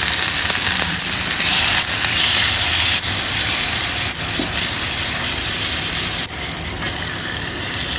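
Hot oil and sugar-garlic caramel sizzling in a nonstick pan as whole threadfin bream are laid in. The sizzle is a loud, even hiss that slowly dies down.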